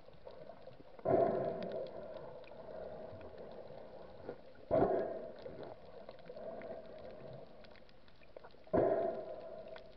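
A snorkeler's breathing through the snorkel, heard underwater: three breaths about four seconds apart, each starting suddenly and fading over about a second, over a faint steady background of water noise.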